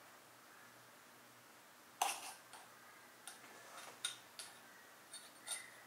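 Small metal Allen key clicking and tapping against a tricycle's handlebar. One sharp click comes about two seconds in, followed by a scattering of lighter, irregular ticks.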